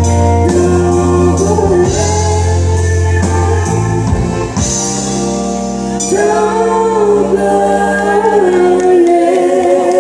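Live country duet: a woman and a man singing together over strummed acoustic guitar and a band with drums and regular cymbal ticks. The low bass notes drop out for a moment near the end.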